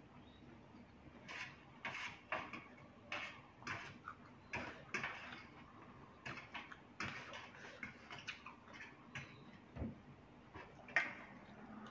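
Close-up eating sounds: slurping rice noodles in curry broth and chewing, in short irregular bursts with small clicks and smacks of the mouth.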